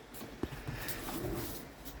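Elephant being hand-fed bananas: a sharp click about half a second in, then rustling and crunching as the fruit is taken and eaten.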